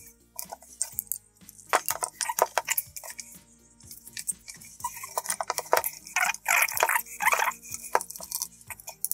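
Scattered clicks and clinks of a small screwdriver and other tools being handled against the plastic fork covers and metal fittings of an electric scooter's front wheel, in two bursts, over faint background music.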